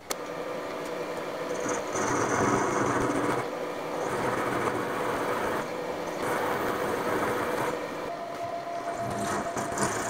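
Vertical milling machine running, its end mill cutting into a round metal bar: a dense, steady machining noise with a steady hum under it, swelling and easing in stretches. A higher steady tone joins about eight seconds in.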